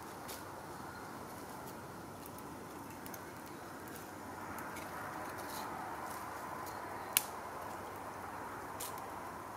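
Small kindling fire crackling as it catches, with scattered sharp crackles and one louder pop about seven seconds in, over a steady hiss that grows a little louder about halfway through.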